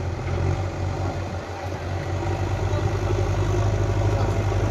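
JCB digger's diesel engine running steadily with a low hum, growing a little louder about halfway through.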